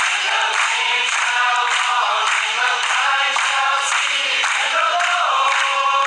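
A choir singing a religious song.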